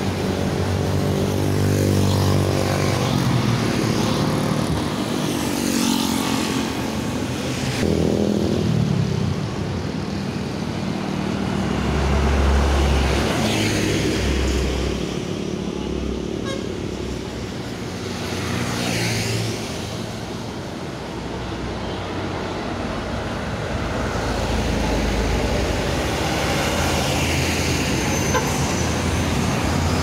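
Highway traffic, heavy trucks and motorcycles driving past one after another. A truck air horn blares a deep, several-note chord for about the first nine seconds, and later a heavy truck's engine rumbles past.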